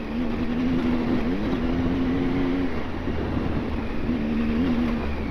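Adventure motorcycle engine running at steady revs off-road, with a brief rise in revs about a second in, over a steady low rumble.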